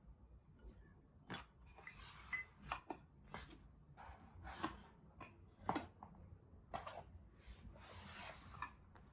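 Faint kitchen handling sounds: scattered light knocks and clicks of utensils and dishes, with a couple of brief rubbing swishes.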